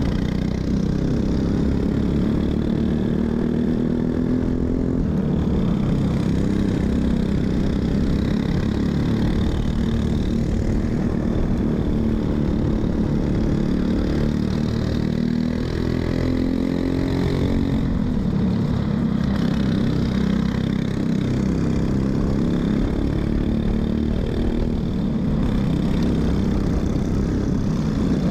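Racing kart engines at full throttle heard from onboard, pitch climbing as the kart accelerates and dropping off into the corners over and over, with another kart's engine close by whose pitch crosses the first about halfway through.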